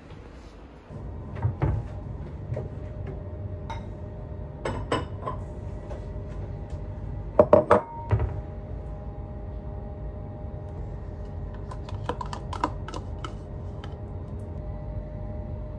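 Kitchen clatter of dishes and containers being handled, knocked and set down, with a quick cluster of three loud clacks about halfway through. Near the end a spoon clinks against a ceramic bowl as yogurt is scooped in. A steady low hum runs underneath.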